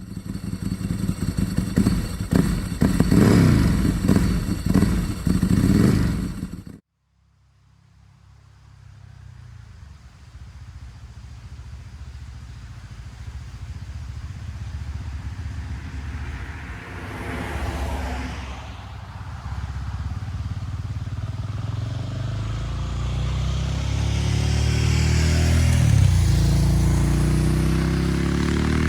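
2020 KTM 690 SMC-R's single-cylinder engine through a LeoVince Nero slip-on exhaust with catalytic converter and dB-killer, running loud with rising and falling revs, then cutting off abruptly about seven seconds in. The bike is then heard again faint and far off, growing steadily louder as it approaches.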